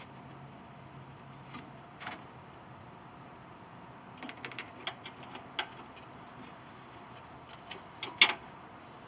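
Scattered sharp metallic clicks and clinks of hand tools and bolts while a radiator is being bolted in, with a quick cluster about four to five seconds in and the loudest pair of knocks near the end.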